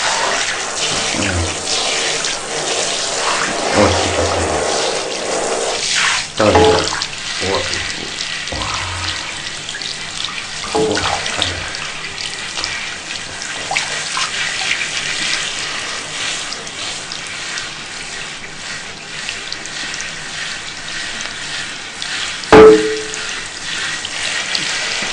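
Water running from a tap into a sink, splashing steadily, with irregular louder splashes as the stream hits a cat being washed under it. A single sharp knock about 22 seconds in is the loudest sound.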